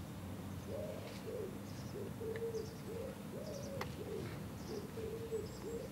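Pigeon cooing: a long unbroken run of short, low, arched coos, one after another, starting just under a second in.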